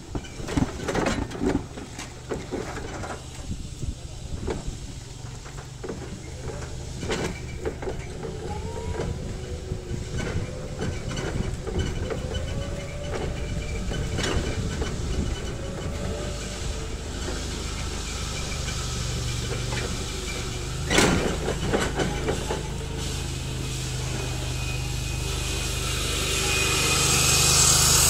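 Forklift running: a steady low engine hum with scattered clunks and knocks, the loudest about two-thirds of the way through, and a whine that wavers in pitch in the middle. Near the end it grows louder, with a rising hiss.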